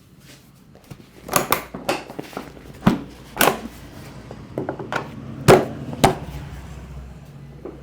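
Hands slapping and tapping on the head and body during a massage: a run of irregular sharp slaps, the loudest about five and a half seconds in.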